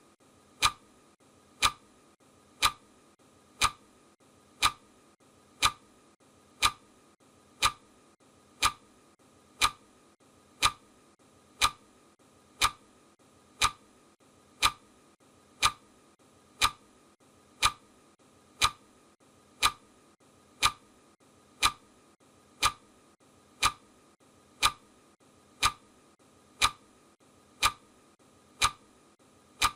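Clock-style ticking of a countdown timer: one sharp, even tick every second, marking off the seconds.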